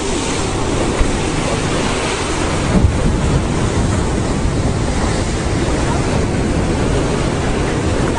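Steady roar of surf breaking on a rocky lava shore, with wind buffeting the microphone. There is a brief knock about a second in and another near three seconds.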